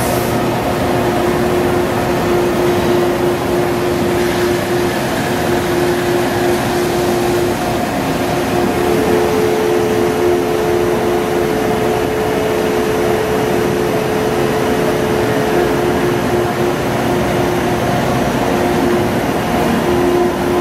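2010 Star SR-32J Swiss-type CNC lathe running a machining cycle with coolant spraying: a steady machine hiss under a constant hum. A second, slightly higher tone joins about nine seconds in and drops out about sixteen seconds in.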